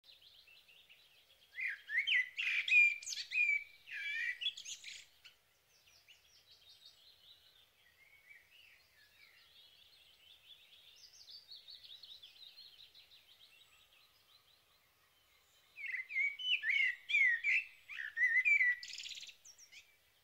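Songbirds singing. Two loud, varied phrases of quick whistled and trilled notes come about a second and a half in and again near the end, with fainter twittering between them.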